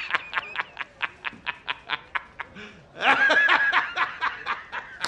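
A man laughing hard in rapid staccato bursts, about five a second. About three seconds in the laugh turns into a longer drawn-out stretch, then the quick bursts resume.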